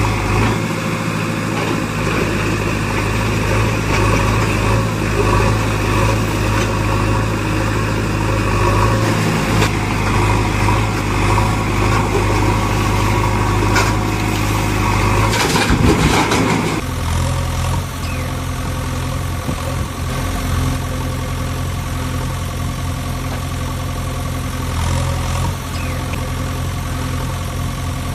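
Engine sound effect laid over a toy backhoe loader: a steady engine running at idle, which switches abruptly to a different, deeper engine loop about 17 seconds in.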